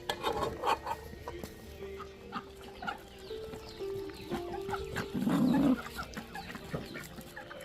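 Chickens clucking as they feed, with a louder short burst about five seconds in, over background music with a slow melody.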